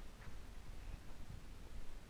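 Quiet room tone with a faint low rumble and soft bumps from a handheld camera being carried at walking pace.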